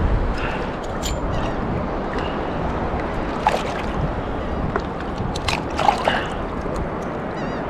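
Surf water sloshing and lapping around a wading angler, with a few brief splashes or knocks scattered through.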